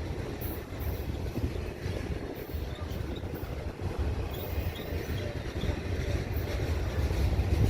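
Freight train's cars rolling past, a steady low rumble of wheels on rail.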